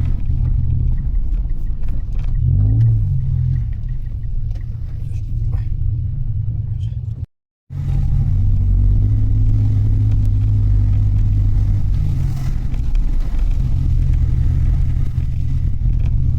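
Mitsubishi Delica van driving: steady low rumble of engine and road noise. The sound drops out completely for about half a second midway.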